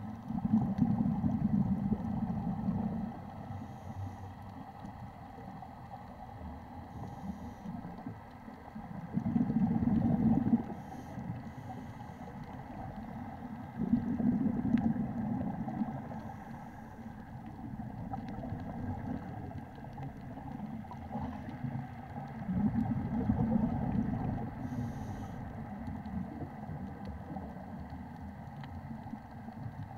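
Scuba diver breathing through a regulator underwater: exhaled bubbles rumble out in bursts of two to three seconds, four times, with a few short faint hisses between them.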